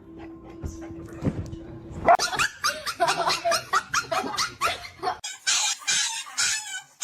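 A dog barking and yipping in a quick run of short calls that starts about two seconds in and turns harsher near the end.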